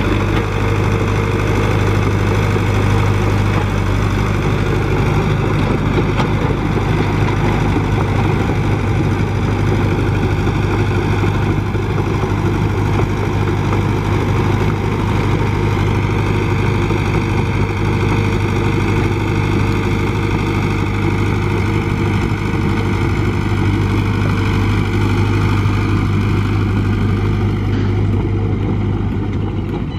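Komatsu PC75UU mini excavator's diesel engine running steadily under working load as the machine digs, a constant low engine hum.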